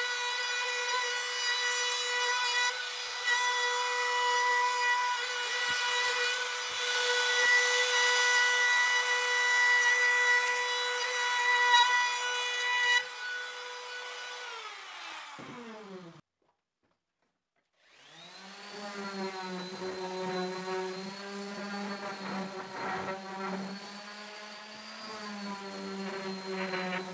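Electric power tool working wood, its motor running at a steady high pitch over a rasping cutting noise. It is switched off about 13 seconds in and winds down with falling pitch. After a brief break, a lower-pitched hum that wavers in pitch runs to the end.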